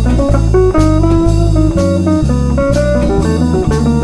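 Background music: a guitar-led tune with a moving bass line and a steady drum beat.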